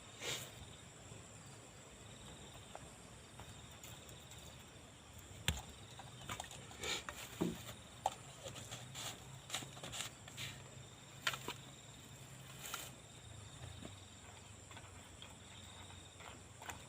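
Quiet campsite ambience: a faint steady high hum over a low hum, broken by scattered sharp clicks and knocks, such as pots and utensils being handled at the cooking fire.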